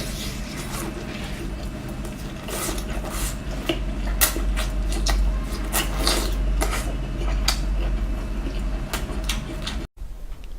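Food and tableware being handled during eating: scattered clicks and knocks over a steady low hum. The hum cuts off abruptly near the end.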